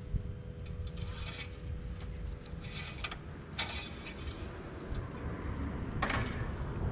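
A few short scraping and rustling noises, about one, three, four and six seconds in, as the engine's oil dipstick is handled and checked, over a low steady background rumble.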